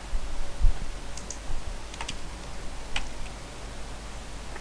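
A few scattered clicks of computer keys as a block of code is selected for copying, over a steady low room hum. A dull low thump about half a second in.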